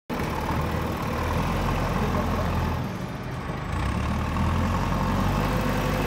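JCB 3DX backhoe loader's diesel engine running as the machine works its front loader bucket, easing off briefly near the middle and then building up again.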